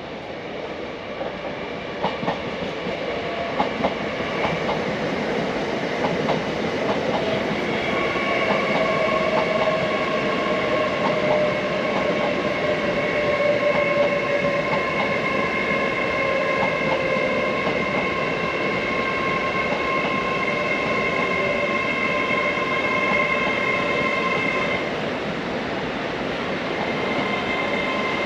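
A train running through the station, with clicks of wheels over rail joints in the first few seconds. Then come steady high whining tones and one slowly falling tone, which break off near the end and start again.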